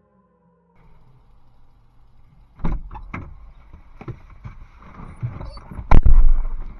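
A few sharp knocks, then one loud heavy thump about six seconds in, over a low rumble.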